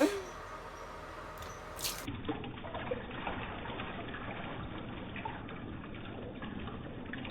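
Water trickling steadily out of a small hole poked in a taped water balloon, with a few light clicks in the first two seconds.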